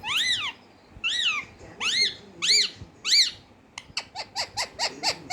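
Pet parrot calling: five squawks, each rising and then falling in pitch, about half a second apart, then a fast run of short, sharp chirps, about five a second, over the last second and a half.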